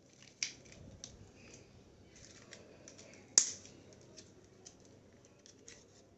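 Small clicks and light scraping of hands and tools working on the plastic casing and screws of a Boat Stone Grenade Bluetooth speaker being taken apart, with two sharp clicks, one about half a second in and a louder one about three and a half seconds in.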